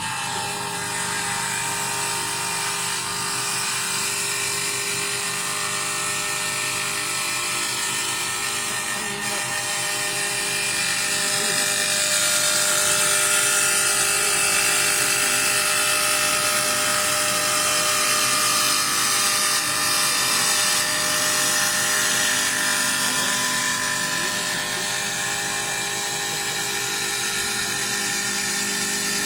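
LR-1530 CNC wood lathe running and turning a workpiece: a steady motor whine with several held tones over a cutting hiss. It grows louder about ten seconds in and eases slightly after about twenty seconds.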